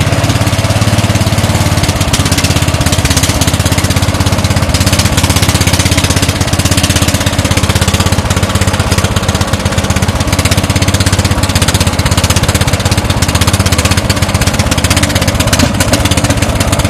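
Engine of a homemade mini dump truck running steadily with a rapid, even beat while the truck drives under its own power on its freshly repaired transmission.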